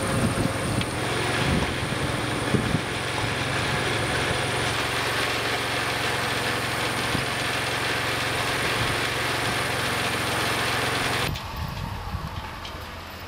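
Pickup truck engine idling with a steady low hum, with a few sharp knocks in the first three seconds; the sound drops abruptly to a quieter level near the end.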